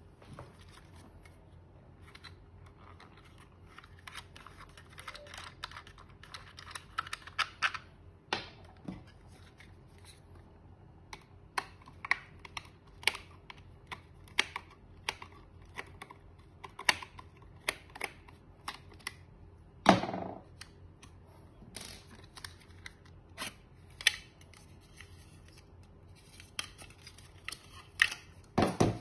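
Irregular clicks and taps of small plastic parts being handled, quick clusters of clicks among them, with a louder knock about two-thirds of the way through and several more near the end.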